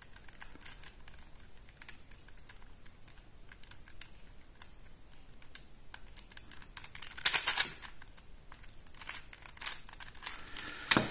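Plastic pieces of a QJ Super Square-1 puzzle clicking and clacking as its layers are turned by hand. The clicks come in an irregular patter, with a louder run of clacks about seven seconds in.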